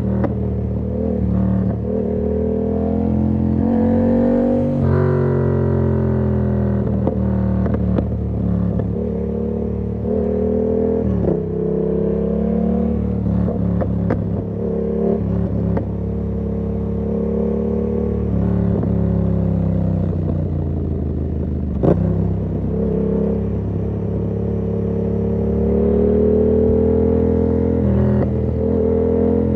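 Yamaha MT-07's parallel-twin engine through an SC-Project exhaust with the dB killer fitted, accelerating through the gears on the move. The engine note climbs and drops sharply at each shift several times, eases off, then builds again. There is a single sharp knock a little over two-thirds of the way through.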